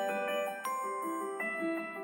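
Redmi Note 11 timer alarm tone ringing: a melody of struck, ringing mallet-like notes, with a new phrase starting about every three quarters of a second.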